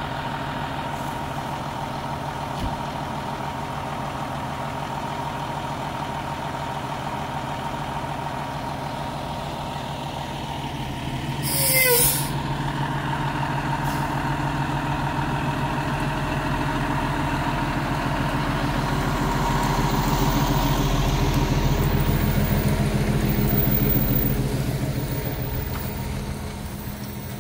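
Fire engine's diesel engine running at idle, with a sharp hiss of its air brakes about twelve seconds in. The engine then grows louder as the truck pulls away and fades near the end.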